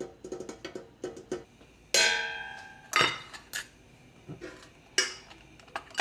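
Cookware and utensils being handled on a kitchen counter: a run of knocks and clatters, with a loud ringing metal clank about two seconds in, like a pot or pan being set down, and a few more sharp knocks after it.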